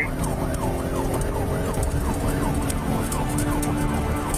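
Police car siren on a rapid yelp, its pitch sweeping up and down two to three times a second, over steady engine and road noise from the pursuing cruiser.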